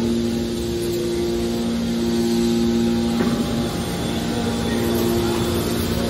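Hydraulic scrap metal baler's power unit running: a steady machine hum with a constant pump whine that breaks off briefly about halfway.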